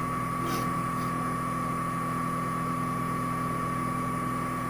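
CNC TU-3A milling machine running, a steady hum with a constant high whine over a lower drone.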